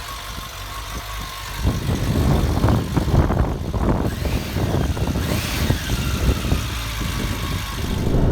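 Suzuki Bandit 600 motorcycle's inline-four engine running, a low rumble that gets louder and rougher about two seconds in.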